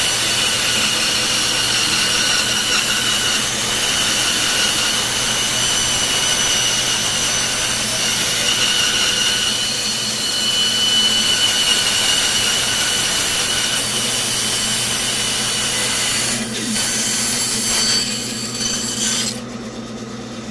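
Bandsaw cutting through a wooden block: a steady rasping saw-cut over the motor's hum. The cut eases off about three-quarters of the way through, picks up again briefly, and then the saw runs free near the end.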